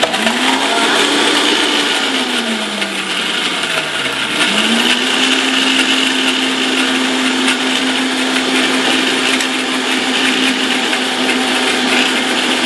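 Vitamix high-powered blender blending a liquid lemon, garlic and olive-oil dressing. The motor spins up, winds down about three seconds in and nearly stops around four seconds, then spins back up and runs steadily.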